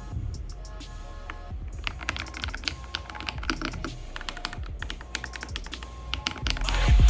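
Rapid typing on a Kreo Swarm wireless mechanical keyboard: a dense, irregular run of key clicks. Background music under it swells loud near the end.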